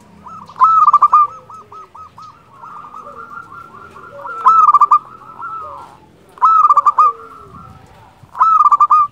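Zebra dove (perkutut) cooing in its flute-like voice: four loud bursts of rapid staccato coos, about two seconds apart, with softer rolling coos between them.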